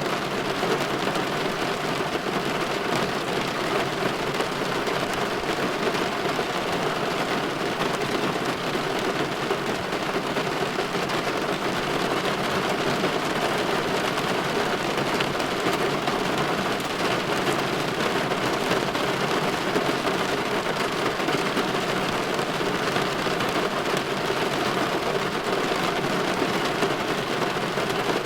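Steady light rain pattering on window glass, an even hiss with no breaks or thunderclaps.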